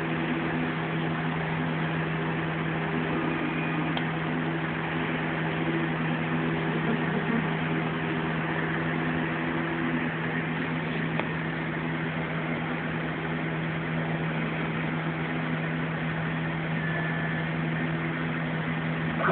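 3D printer at work: a steady low hum, with the stepper motors whining in tones that change and come and go as the print head and bed move through the print.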